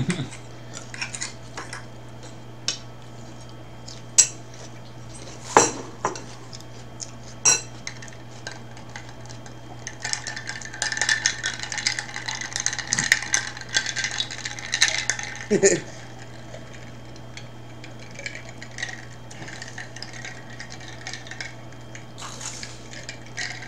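A fork clicks sharply against a ceramic bowl a few times. About ten seconds in comes a dense run of clinking that lasts several seconds, as a glass mason jar of iced water is picked up and drunk from.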